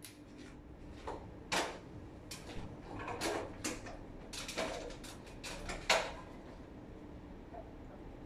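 A string of light knocks and clatters from someone moving about and handling things while cleaning, the loudest about a second and a half in and about six seconds in, then only a low steady hum.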